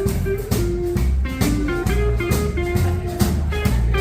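Instrumental break of a country song: guitar carrying a melody over bass and drums with a steady beat.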